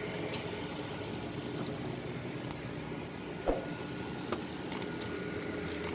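Steady background hum with a knock about halfway through, then a few light clicks as a knife works on a tilapia on a wooden cutting board.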